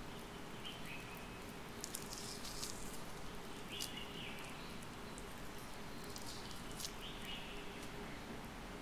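Peeled orange segments being pulled apart by hand, the membranes and pith giving soft, wet crackles in two clusters, about two seconds in and again near the end, over a steady hiss. A faint short chirp recurs about every three seconds.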